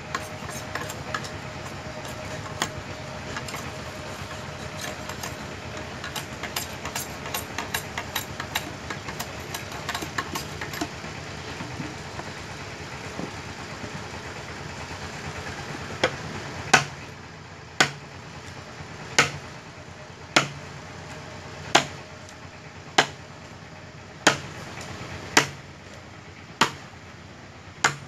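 A machete cutting into a length of green bamboo: a run of quick, light strokes in the first half, then sharp, heavy chops about once every second and a quarter from about halfway through. A steady low hum runs underneath.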